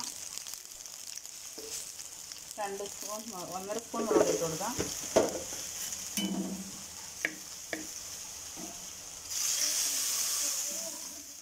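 Dried red chillies, curry leaves and chilli powder frying in hot oil: a steady sizzle with a few clicks of a steel spoon against the pot. About nine seconds in, liquid is poured into the hot oil and the sizzling turns much louder for a couple of seconds.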